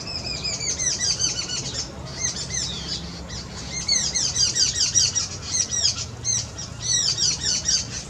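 A small group of babblers chattering together: rapid runs of squeaky, falling notes that come in several loud bursts, the busiest about halfway through.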